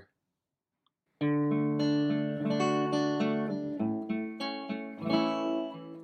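Near silence for about a second, then instrumental background music begins: acoustic guitar playing a run of picked notes.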